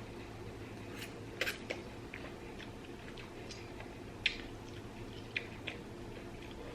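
Quiet eating sounds: a few scattered soft clicks and smacks of someone chewing spicy instant noodles, over a steady low hum.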